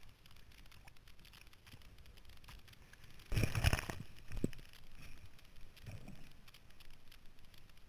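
Windsurfer in breaking surf: a steady rush of water and wind, then a loud splash of whitewater over the rig about three and a half seconds in, followed by smaller splashes.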